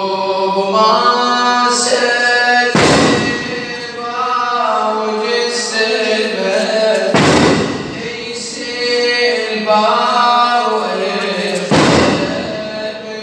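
A man's voice chanting a Muharram mourning lament (noha), with mourners striking their backs with chains (zanjir) in unison. The chains land as three loud jangling crashes about every four and a half seconds.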